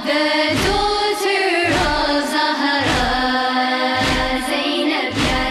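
Three women singing a noha, a Shia mourning lament, their held, wavering notes carried over a steady low thump about every half second that keeps the beat.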